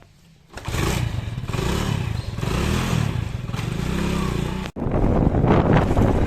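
A heavy diesel engine starts sounding about half a second in and runs with its pitch rising and falling as it revs. About two-thirds of the way through, it cuts off abruptly and gives way to a louder, rougher engine sound with a lot of clattering.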